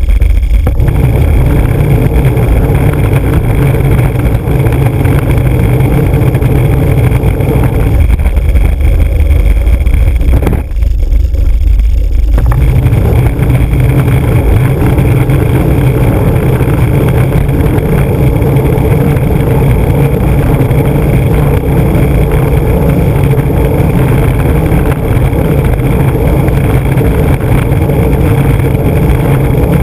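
Skateboard urethane wheels rolling over rough asphalt: a loud, steady rumble carried straight into a camera mounted on the board. The rumble thins out for a couple of seconds about eleven seconds in.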